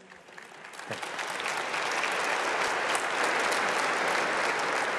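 A large congregation applauding: the clapping builds over the first second or so, then holds steady and dense.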